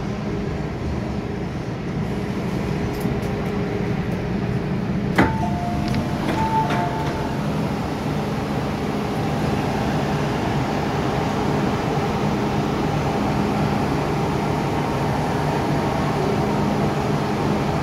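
MTR M-Train running into a station and slowing at the platform, heard from inside the car: a steady hum of motors and wheels. About five seconds in there is one sharp click, followed by two short beeping tones.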